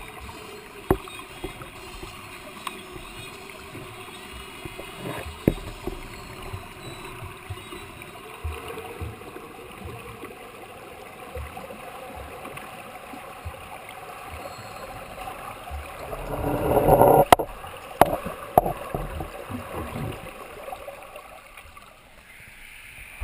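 Underwater pool noise: a steady water hiss with scattered small knocks as a butterfly swimmer approaches. It swells into loud churning water about two-thirds of the way through, followed by a few sharp knocks.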